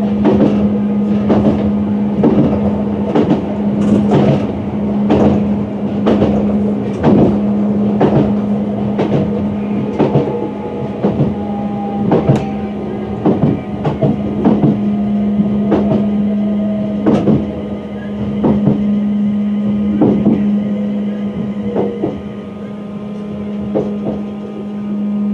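Running sound of a Class 350 Desiro electric multiple unit heard from the cab: a steady hum under sharp wheel clicks over the rail about once a second. In the second half a faint whine falls slowly in pitch.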